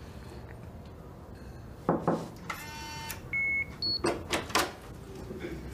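Two sharp knocks, then an electronic door lock's short buzz and two quick beeps, one lower and one higher, followed by several clicks and knocks as the latch releases and the door is handled.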